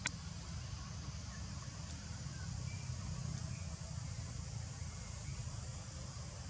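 Steady outdoor background noise: a low rumble and a high hiss, with a sharp click at the very start.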